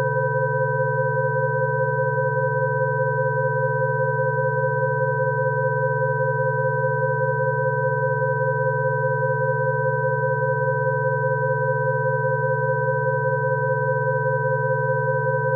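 Electronically generated sine tones of a Rife frequency track: several steady pitches sound together without a break, from a low hum up to a high whistle, one middle tone with a slight rapid flutter.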